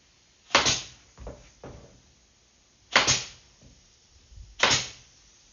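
A Senco pin nailer firing three times, each shot a sharp crack with a short hiss, about two and a half seconds and then under two seconds apart, as pins are driven to nail the glued joints of a wooden box. Two softer knocks come between the first and second shots.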